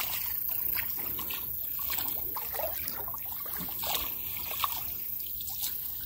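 Flooded river water trickling and sloshing close by as someone wades through it, with small irregular splashes.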